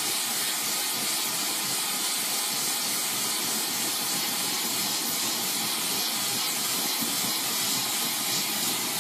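Oxyacetylene torch flame burning with a steady hiss while it heats the edge of a large Damascus steel blade for differential edge hardening.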